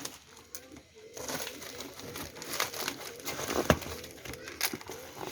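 Packaging crinkling and tearing as an engine is unpacked from its box, in irregular crackles.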